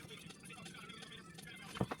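A faint steady hum, then two quick sharp clicks close together near the end, like small parts or a tool knocking.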